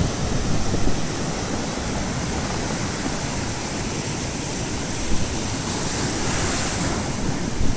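Baltic Sea surf washing onto the shore in a steady hiss, with a wave surging up about six seconds in. Wind buffets the microphone with low rumbles.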